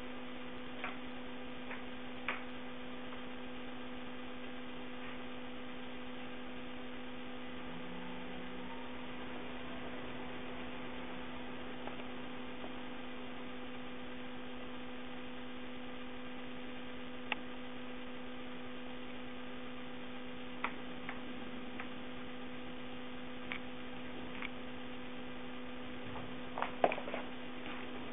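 Steady electrical hum with a fainter higher overtone, and a few light taps and clicks scattered through it, the sharpest near the end.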